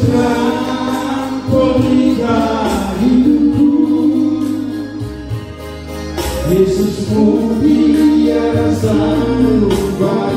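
A man singing a gospel-style song into a microphone through a PA, with held, gliding notes, over an instrumental accompaniment with steady bass notes.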